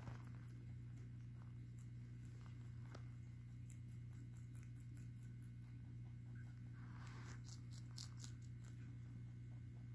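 Lop-eared rabbit chewing leafy greens: faint rapid crunching clicks, thickest about seven to nine seconds in, over a steady low hum.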